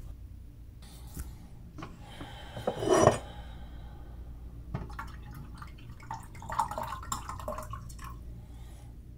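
White wine poured from a bottle into a glass tumbler: liquid splashing and glugging with small glass clinks, over a steady low hum. There is a louder rising sound about three seconds in.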